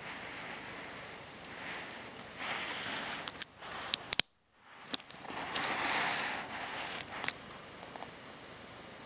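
Metal watch bracelet handled close up, the steel links clinking and rustling, with a run of sharp metal clicks as the folding clasp is bent and closed. The sound cuts out for about half a second just after four seconds in.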